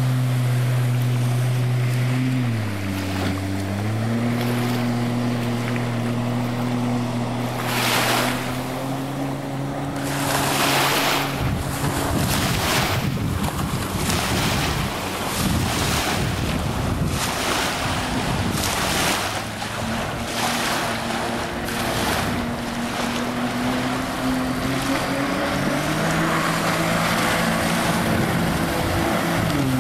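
Sea-Doo 215 jet-ski engine driving a small aluminium jet boat at speed: a steady engine drone that dips in pitch and picks back up about three seconds in. Through the middle, gusty wind noise on the microphone and water rush cover the engine, which comes through clearly again near the end.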